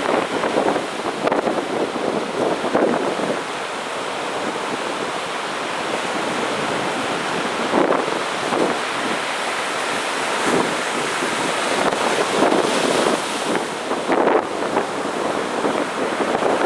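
Heavy sea surf breaking and washing on a beach: a continuous rushing wash with waves surging and crashing every few seconds.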